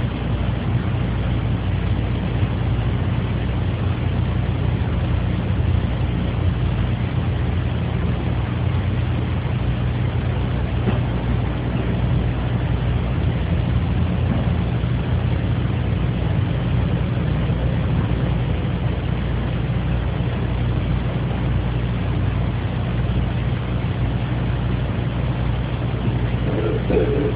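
Steady low hum of a room's background noise, recorded on a phone's voice recorder. Near the end a man's short throat-clearing begins, muffled.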